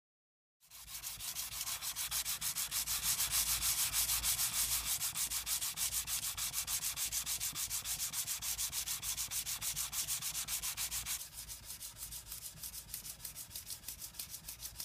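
Steel knife blade being sanded by hand with rapid back-and-forth strokes, several a second, a hissing scrape on each stroke. The strokes start about half a second in and turn softer and duller about eleven seconds in.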